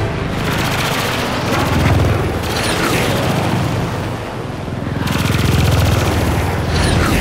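Cartoon battle sound effects: rapid machine-gun fire rattling continuously, with heavy booms swelling about two seconds in and again past the middle, and a few short falling whistles.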